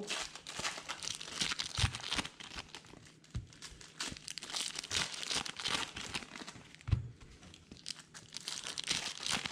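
Foil wrappers of 2020 Donruss baseball card packs crinkling while freshly pulled trading cards are handled and flipped through, with a few low knocks.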